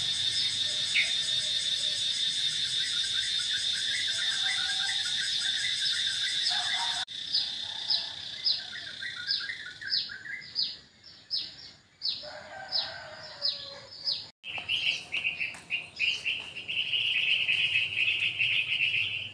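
Birds chirping: repeated short falling chirps over a steady high buzz. About seven seconds in the sound changes abruptly, and about fourteen seconds in a louder, pulsing high buzz takes over.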